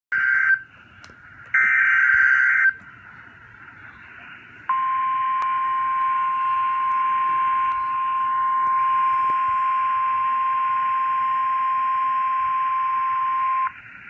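Emergency Alert System SAME header: two short, harsh digital data bursts, then a steady single-pitched alert tone held for about nine seconds and cut off sharply. This is the weather-radio warning alarm tone announcing a severe thunderstorm warning.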